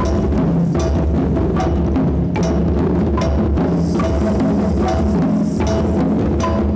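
A children's hand-drum ensemble playing tall drums in a steady rhythm. Deep drum tones run throughout, with a sharper stroke about every 0.8 seconds.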